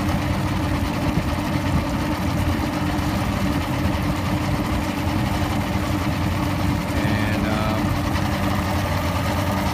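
Evinrude two-stroke outboard motor idling steadily at low rpm after its QuickStart fast idle has disengaged. The motor has a rough-idle problem of coughing, sneezing and stalling at low rpm, but it is coughing less than usual here.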